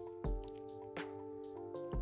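Background music: sustained held notes over a steady low beat.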